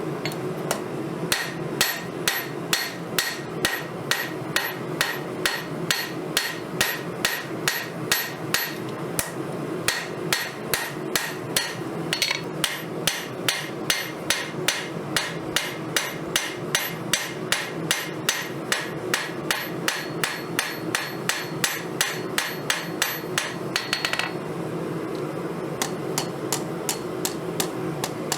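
Hammer blows on a steel file being forged into a knife on an anvil, in a steady rhythm of about three blows a second, each with a short metallic ring, over a steady background noise.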